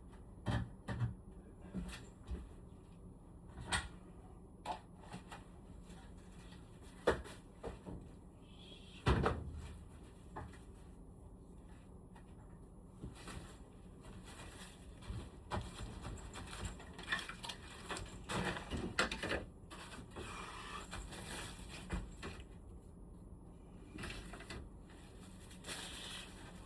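Irregular clicks and knocks of hard plastic parts being handled on a Panasonic room air conditioner's indoor unit, with a few brief rustling stretches.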